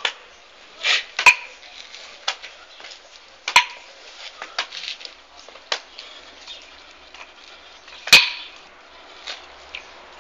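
A pair of nunchaku swung at once, swishing through the air, with sharp clacks as the sticks strike. The three loudest clacks come about a second in, about three and a half seconds in, and about eight seconds in.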